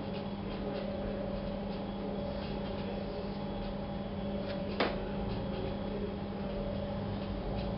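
A steady low hum with faint scratchy strokes, typical of someone drawing, and one sharp click a little under five seconds in.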